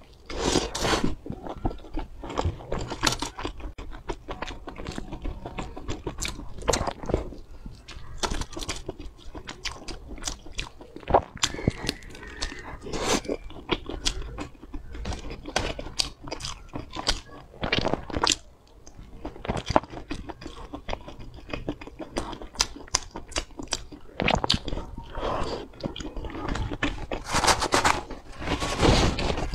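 Close-miked eating: a person biting and chewing sauce-coated skewered food, a dense, irregular run of sharp clicking mouth sounds. Louder bites come about a second in and again near the end.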